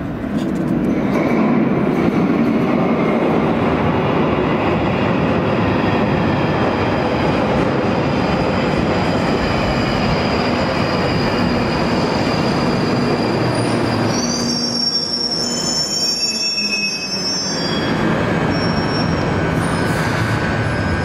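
London Underground Northern Line 1995 Stock train running in from the tunnel to a platform with a loud, steady rolling rumble. High-pitched wheel and brake squeals come about three-quarters of the way through as it slows to a stop, then the stopped train hums.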